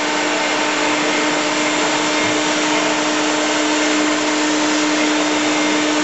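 Vacuum cleaner running steadily: an even rushing of air with a constant motor hum that holds one pitch.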